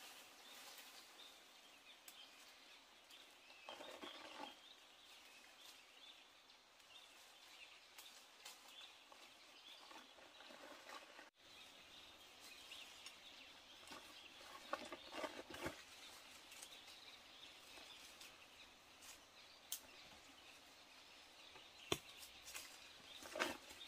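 Faint outdoor ambience with soft bird calls. A few short spells of rustling and sharp clicks come about four seconds in, in the middle and near the end.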